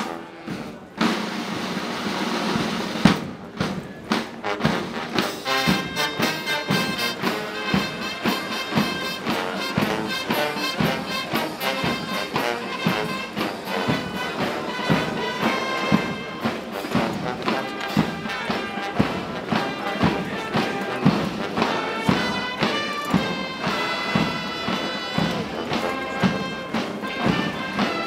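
Brass band music playing a march with a steady beat. It is preceded by about two seconds of massed voices shouting.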